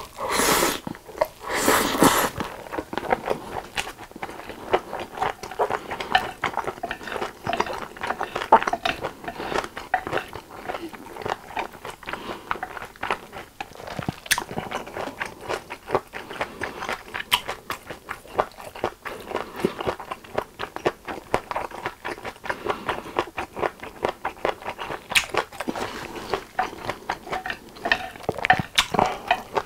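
Close-miked eating of japchae, stir-fried glass noodles with vegetables and meat. Two loud slurps of noodles come in the first couple of seconds, followed by steady wet chewing with many small clicks.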